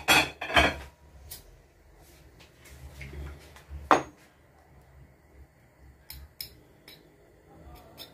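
Kitchen dishes and utensils being handled: a quick cluster of clinks and knocks at the start, one sharp knock about four seconds in, and a few light taps around six seconds.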